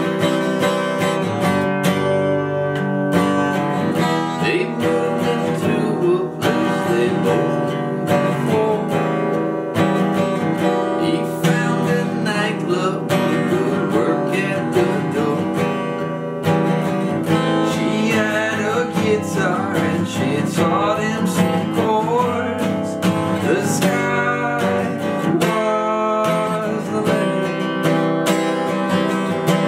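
Steel-string acoustic guitar strummed steadily in full chords, played as a solo accompaniment.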